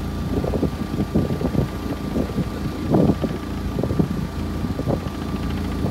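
Wind buffeting the microphone in uneven gusts over a steady low engine hum, as the sailboat motors with its sails furled.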